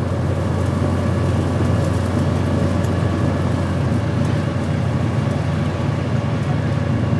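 A bowfishing boat's motor running steadily, a constant low drone that does not rev up or down.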